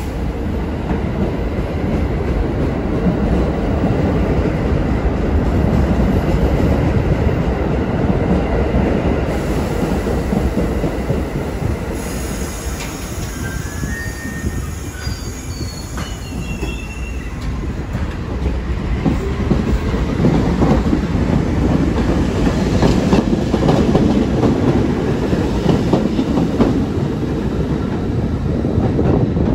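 R68 subway trains running through the station: a steady rumble and rattle of steel wheels on rail that swells twice. About halfway through there is a brief high wheel squeal.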